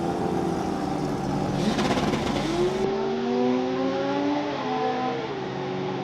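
Drag-racing Holden VL Commodore's engine running hard, first with a rushing noise, then after a sudden change near the middle as a steady engine note that slowly rises in pitch.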